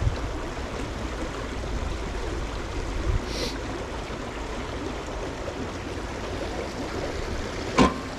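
A brook running high and fast, a steady rush of water. There is a single sharp click near the end.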